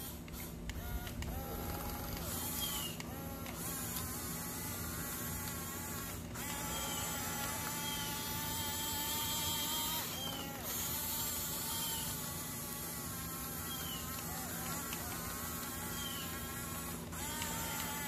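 Small electric drive motors of a radio-controlled toy bulldozer whining steadily, the pitch rising and falling every few seconds as the throttle changes.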